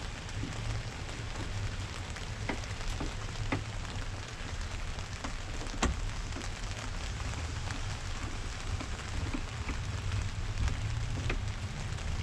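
Steady hiss with a low rumble, with scattered light clicks and taps from hand tools as the door handle's Torx bolts are put back in. The sharpest click comes about six seconds in.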